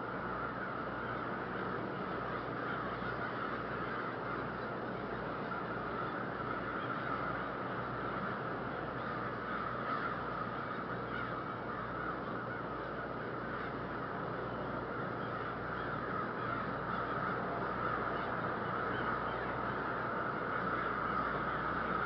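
Many American crows cawing at once, their calls overlapping into a continuous din that swells slightly near the end, over a low steady hum.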